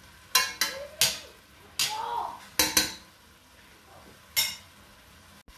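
Wooden spatula knocking against a stainless steel pot while stirring, six or seven sharp knocks in the first three seconds, then one more knock about four seconds in.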